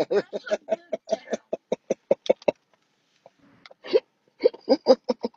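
A person laughing: a quick run of short, evenly spaced ha-ha syllables, then after a pause of about a second, a few more.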